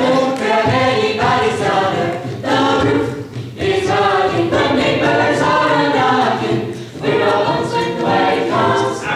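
Mixed-voice jazz choir singing a cappella in close harmony into hand-held microphones, in short phrases with brief dips between them.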